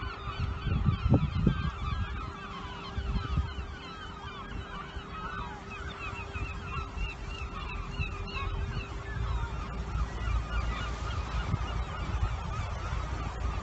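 Many seabirds calling at once, short overlapping calls in a constant chatter, over a low rumble.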